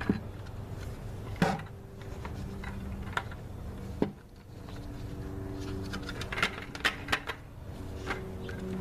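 Hand-tool work on the bucket build: scattered sharp clicks and knocks, a cluster of them about two thirds of the way in, over a steady low hum.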